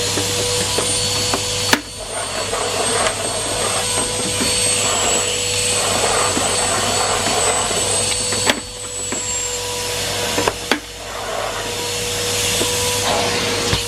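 Numatic Henry Pet vacuum cleaner running steadily: a continuous rush of suction over a constant motor whine, the airflow changing in tone as it is worked. A few sharp knocks come about 2 s, 8.5 s and 11 s in.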